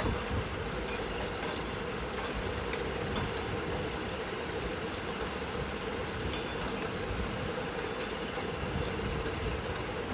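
A slotted metal spatula stirs vegetables in sauce in an aluminium kadai, scraping and clinking against the pan at irregular intervals. Under it runs a steady rushing hiss from the stir-fry on a high gas flame.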